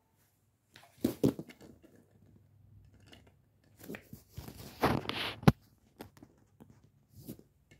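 Handling noise as a die-cast toy car and the camera are moved about on a foam play mat: short rustles and scrapes about a second in, a longer scraping stretch from about four seconds that ends in a sharp knock, and a brief rustle near the end.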